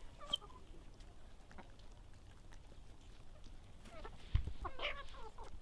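Chickens clucking softly, with a short call just after the start and a louder call near the end, preceded by a low thump.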